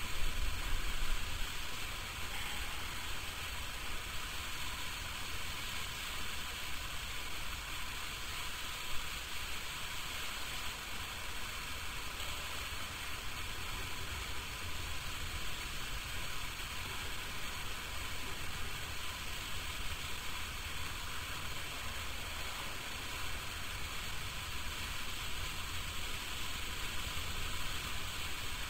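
Steady hiss with a low hum beneath it, like the background noise of an old video recording, with one brief tap about nine seconds in.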